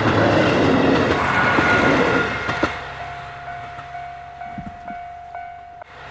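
Train passing close by: a loud rumbling rush of the cars that fades after about two and a half seconds, leaving a steady high tone and a low hum.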